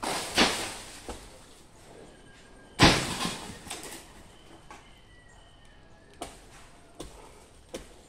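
Cut pieces of a coconut palm crashing down from the top of the tree, twice about two and a half seconds apart, each crash trailing off over about a second, followed by a few light knocks.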